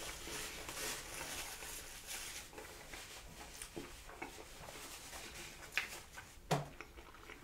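Faint handling noise at a table of takeout food: soft rustling and light taps, with two sharper clicks late on.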